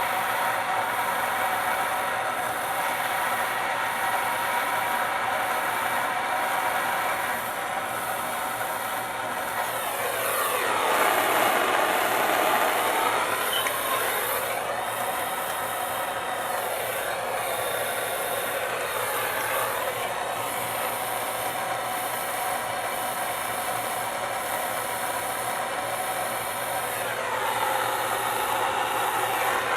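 Handheld gas soldering torch flame hissing steadily while heating copper pipe joints to sweat solder into them. It swells louder around ten to fourteen seconds in, and its tone shifts as the torch moves.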